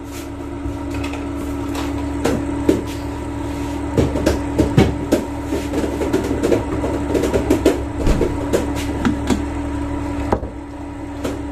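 Kitchen bowls, plates and utensils knocking and clattering as they are handled and set down, a scatter of short knocks over a steady hum.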